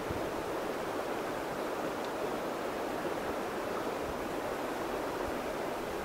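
Shallow mountain stream flowing over pebbles and rocks, a steady rushing of water.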